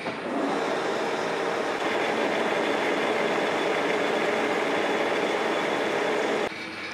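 Metal lathe running with a welded-up steel shaft turning in a four-jaw chuck, the cutting tool at the work as the built-up weld is turned down. It starts just after the beginning and stops shortly before the end.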